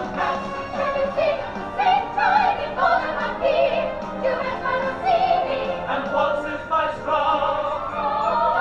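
Musical-theatre number: voices sing wavering, held notes over orchestral backing, with no words clear enough to make out.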